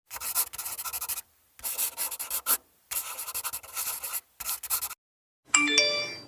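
Four bursts of quick scratchy rubbing strokes, each about a second long, then a short bright tinkling chime with rising notes near the end.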